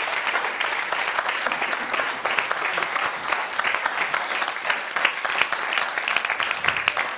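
Studio audience applauding, with many hands clapping at a steady level.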